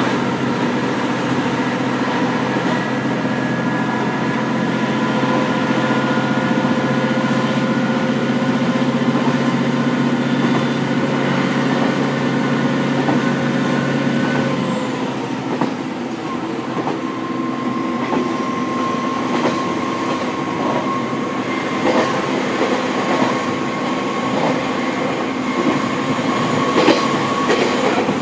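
KiHa 40 diesel railcar heard from the seat directly above its engine: the diesel engine runs under power with a steady note, which drops away about halfway through. The car then runs on with a steady whine and its wheels clicking over rail joints.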